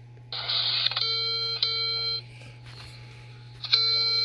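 Phonak hearing aid's low-battery warning tone: steady electronic beeps about half a second each. Two come back to back about a second in, and another starts near the end. A short burst of hiss comes just before the first pair.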